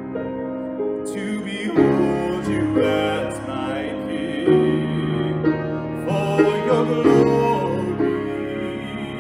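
A man singing a slow worship song, accompanying himself on a grand piano.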